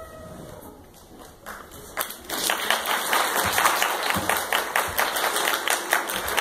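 Audience applauding: after a quiet start, dense clapping from many hands begins about two seconds in and keeps on steadily.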